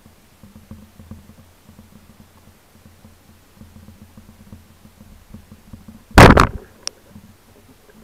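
A band speargun firing underwater: one loud, sharp crack as the rubber bands release and drive the shaft, about six seconds in, followed by a short click. Faint low water rumble before and after.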